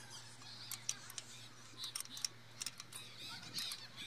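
Faint, irregular small clicks and ticks as the glass-bowl diesel fuel filter of a Massey Ferguson 375 tractor is screwed tight by hand, its bowl and metal head knocking lightly against the fingers and fittings.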